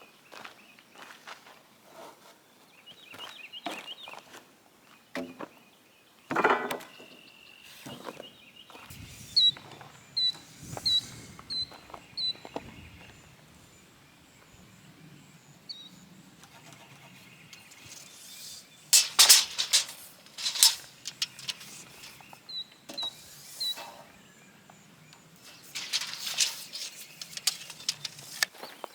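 Footsteps and scattered knocks and thumps of work on wooden fence posts being set in the ground, with louder scraping bursts twice in the second half. Short high chirps come in quick series twice.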